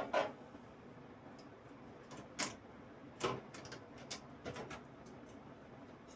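Irregular light clicks and taps of computer parts and small hardware being handled in a PC case, about eight in all and spaced unevenly.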